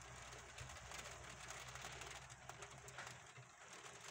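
Faint light rain pattering, with scattered small drop ticks, over a low steady hum that stops about three seconds in.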